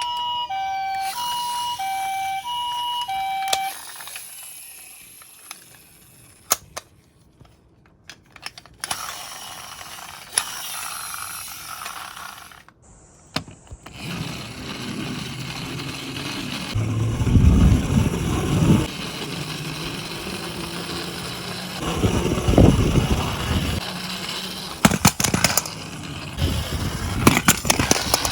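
Toy ambulance's electronic two-tone hi-lo siren, which cuts off a few seconds in. After that come scattered clicks and rattles of plastic toys being handled, with a couple of low rumbling stretches.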